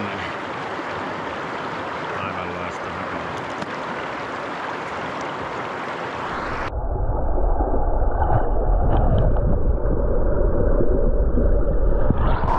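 Rushing water of a small river rapid, a steady even hiss. About two-thirds of the way through it abruptly turns louder and muffled, a deep rumble with the hiss cut off.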